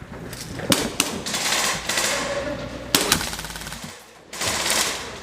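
Airsoft electric guns firing rapid full-auto bursts, with several sharp cracks among them and a brief lull near the end.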